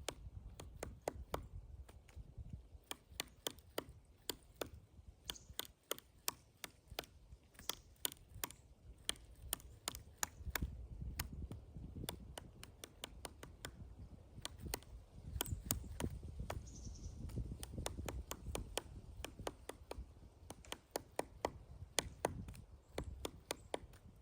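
Pileated woodpecker chiselling into a pine tree: sharp, irregular knocks of its bill on the wood, a few a second, with brief pauses.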